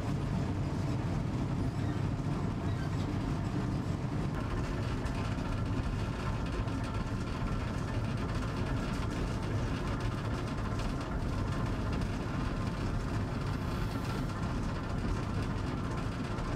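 Train hauled by a V36 diesel locomotive running along the track, a steady low rumble of the diesel engine and wheels with no change in pace.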